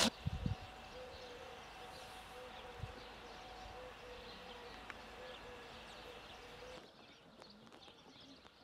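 Faint outdoor ambience with scattered bird chirps over a steady background hush, and a couple of soft knocks in the first half second. The sound changes abruptly about seven seconds in, as at an edit.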